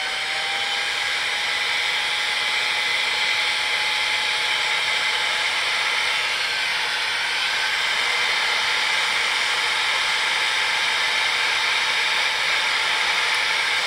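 Electric heat gun running steadily, blowing hot air to shrink heat-shrink tubing over crimped ignition-coil wire terminals: an even rush of air with a faint steady whine.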